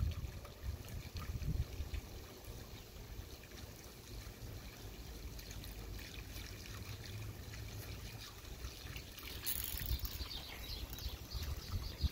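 Water from a garden hose trickling across muddy soil into a puddle, with a dog lapping and splashing at it, the small wet ticks busier near the end. A low rumble runs underneath.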